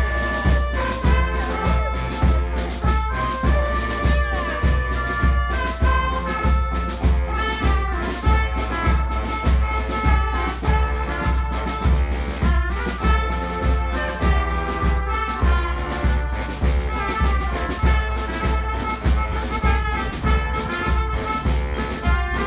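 Street brass band playing an upbeat tune: horns such as trumpets and trombones over a steady, heavy drum beat.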